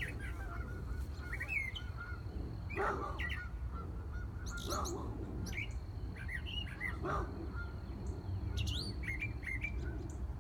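Several birds chirping and singing, many short calls overlapping, with a few louder calls spread through, over a low rumble.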